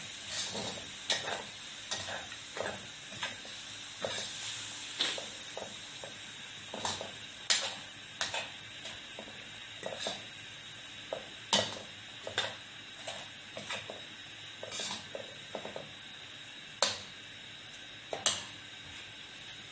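Metal ladle scraping and knocking against a wok in irregular strokes during stir-frying, over a steady sizzle from the food frying in the pan.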